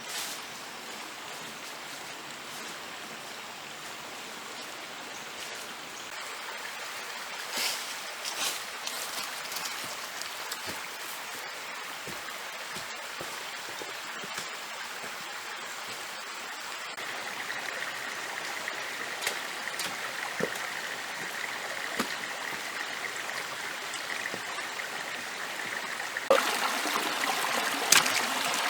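Steady running water of a stream, with a few sharp knocks about a quarter of the way in and near the end. A faint steady high tone comes in past the middle, and the water grows louder shortly before the end.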